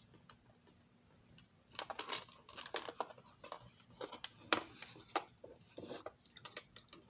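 Light, irregular clicks and small scrapes of a model railroad passenger car and its tiny parts being handled on a workbench. The first second and a half is nearly quiet.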